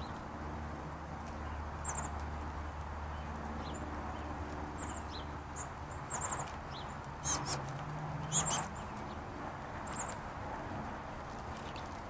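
Small songbirds giving short, high-pitched chirps every second or two, some in quick runs of three or four notes, over a steady low background rumble. Two brief louder rustles come near the middle.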